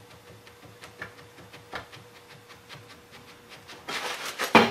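Aluminum frame casting being worked on a tight-fitting aluminum jig on a cast-iron drill-press table: small ticks and knocks of metal on metal, then a loud rasping scrape and a sharp clunk near the end as the casting is twisted off the jig.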